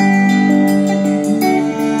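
Live band playing an instrumental passage: held saxophone and electric guitar notes that change pitch a few times, over drums with steady cymbal strokes.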